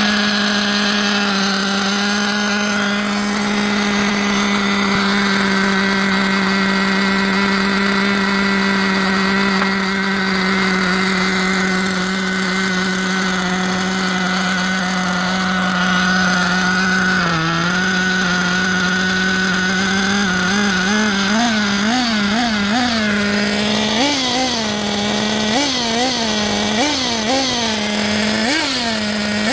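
Two-stroke glow engine of a Team Losi 8IGHT 4.0 1/8-scale nitro buggy idling steadily at a high, buzzy pitch, dipping briefly once near the middle. In the last third the throttle is blipped over and over, each blip a quick rise and fall in pitch, first in a rapid cluster and then every second or so.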